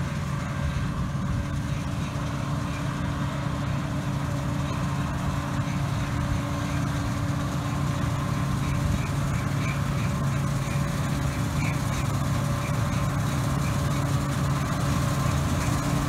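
John Deere combine harvester running steadily while it cuts wheat, a droning engine hum with a noisy whir over it, growing slowly louder as the machine comes closer.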